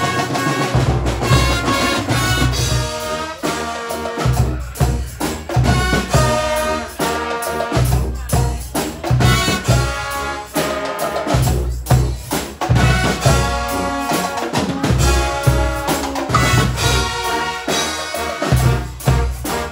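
Guggenmusik carnival brass band playing live: trumpets, trombones, saxophones and sousaphones over a steady beat on a large marching bass drum and other drums.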